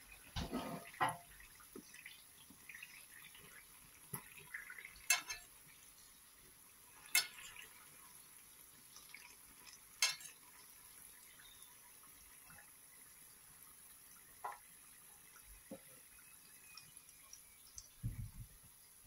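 Stuffed vegetable pastries deep-frying in hot oil, a steady sizzle, with a spoon clinking sharply against the pan several times as they are turned and lifted out, a few quick knocks near the end.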